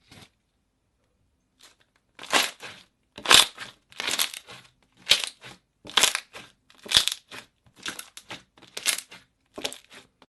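Slime being squeezed and pressed by hand: a run of short, crackly squelches about one a second, starting about two seconds in.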